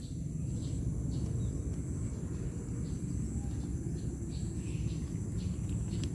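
Outdoor ambience: a steady high insect drone over a steady low rumble, with a few faint soft clicks.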